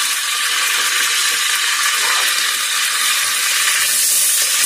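Hot cooking oil sizzling steadily on a gas stove. About four seconds in the sizzle turns brighter and louder as chopped green chillies and onions go into the oil.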